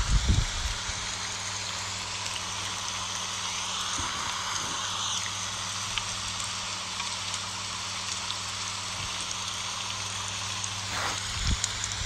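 Steady rain pattering on broad elephant-ear leaves, an even hiss of many drops. A few low thumps come at the start and again near the end, over a faint low hum.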